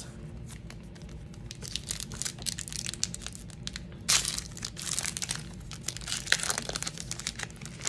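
Gold foil wrapper of a 1996 Action Packed football card pack crinkling and tearing as it is opened by hand: a dense run of crackles, loudest about four seconds in.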